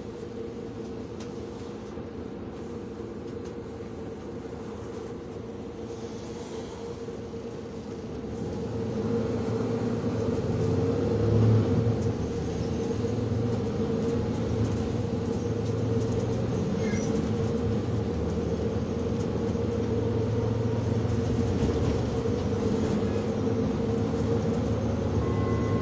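Public-transport vehicle running, heard from inside: a steady low rumble with a humming tone, growing louder about nine seconds in and then running evenly.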